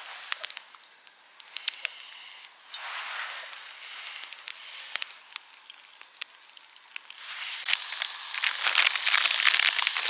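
Wood fire crackling with scattered sharp pops, then from about seven seconds in a flat sausage and black pudding sizzling in a small frying pan on the fire, growing louder.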